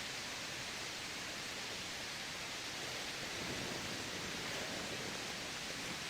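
Steady heavy rain falling, an even hiss without separate drops or knocks.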